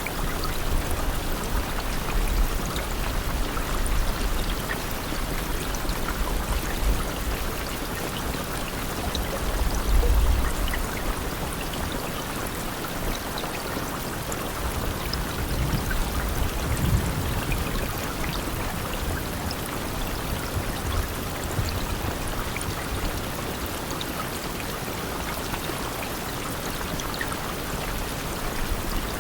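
Steady rain: an even hiss of falling water with scattered drop ticks. A low rumble swells about ten seconds in and again around seventeen seconds.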